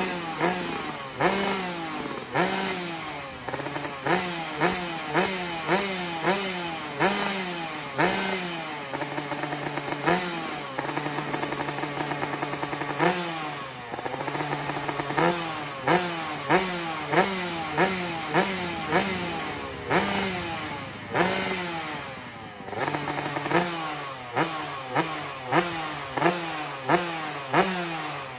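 Yamaha RX-King 135cc single-cylinder two-stroke motorcycle engine being revved in quick throttle blips, about one a second, each rev falling back toward idle, with a few stretches where the revs are held steady.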